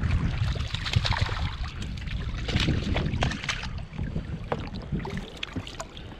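Wind buffeting the microphone over water lapping against a small inflatable boat, with scattered short clicks and splashes.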